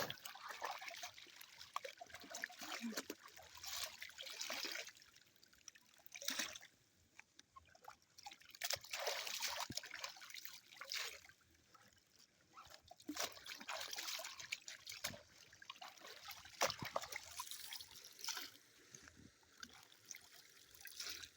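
Water trickling and splashing in irregular spells, with scattered light knocks.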